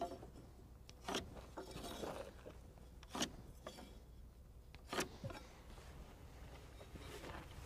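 A pencil scratching across a stack of wooden rafters as lines are drawn against a metal speed square: a few short, faint strokes a second or two apart, with light rubbing between them.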